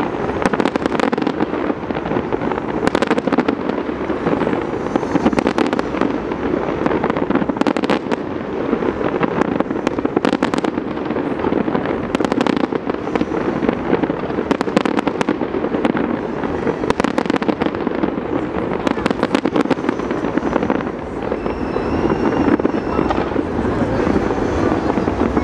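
Aerial fireworks display: a dense, continuous crackle of many bursting shells, with sharper bangs scattered all through.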